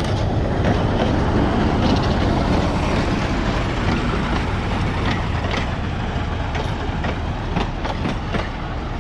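Narrow-gauge diesel locomotive running steadily as it hauls a passenger carriage past, with a low engine rumble. Its wheels clack over the rail joints, more often in the second half.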